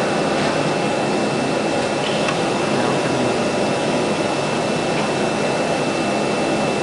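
CNC router with a rotary automatic tool changer running. It makes a steady, unbroken machine noise with a constant high-pitched tone over it.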